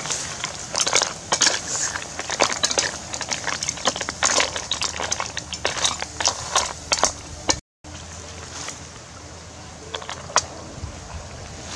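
Snail shells clattering and scraping in a metal wok as they are stirred with a metal spatula: a dense run of sharp clicks and knocks. It breaks off about two-thirds of the way in, leaving a quieter stretch with an occasional click.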